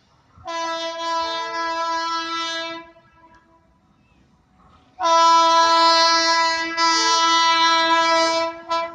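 Train horn sounding two steady blasts at one pitch: the first about two and a half seconds long, the second louder and nearly four seconds long with a brief dip partway through.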